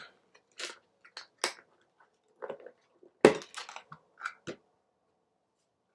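Packaging of a store-bought wrap crackling and snapping in short, irregular bursts as it is pulled open, the loudest snap a little past three seconds in, then stopping about four and a half seconds in.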